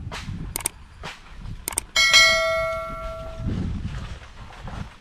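A few sharp clicks, then about two seconds in a metal object is struck and rings with a clear tone that fades over about a second and a half, followed by a few dull low thumps.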